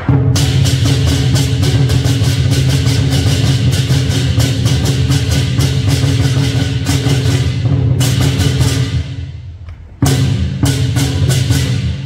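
Lion dance percussion: a big drum and clashing cymbals playing a fast, driving beat. About two-thirds of the way in, the beat breaks off and the cymbals ring out and fade for about two seconds, then drum and cymbals come back in together.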